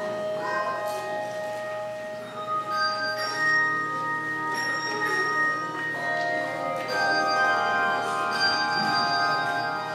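Handbell choir playing a slow piece, several bells struck together and left ringing into one another.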